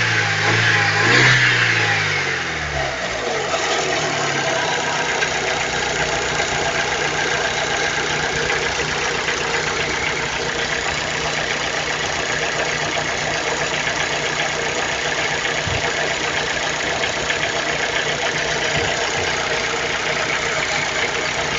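Chevrolet Celta 1.0 VHC four-cylinder engine coming down from a rev to idle in the first few seconds, then idling steadily; the owner is showing an abnormal noise from this engine.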